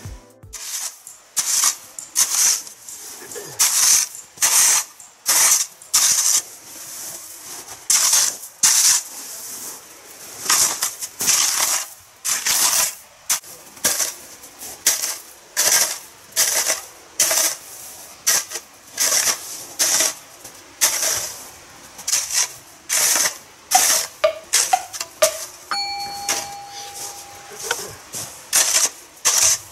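Aluminium snow shovel scraping and scooping packed snow in repeated strokes, about one a second. A brief steady tone sounds near the end.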